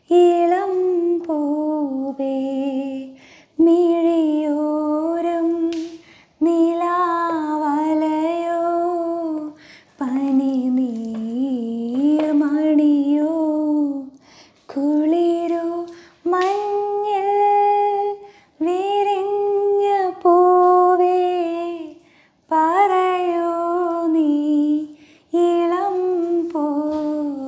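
A woman singing an old Malayalam melody song unaccompanied, in slow phrases of long held notes with short breaths between them.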